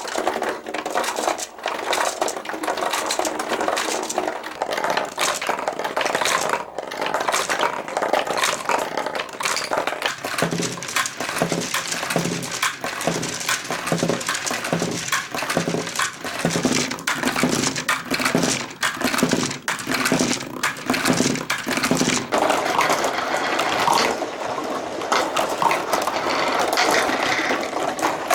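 Many glass marbles rolling and clacking through a cardboard marble run, a steady stream of small rattling clicks and knocks. Through the middle of the stretch a low pulsing sound repeats a bit faster than once a second.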